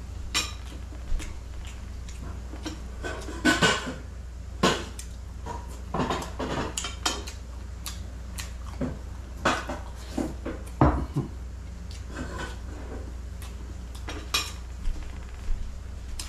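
Irregular clinks and taps of plates and a serving tray as food is picked up and handled by hand, the loudest knock about two-thirds of the way through, over a steady low hum.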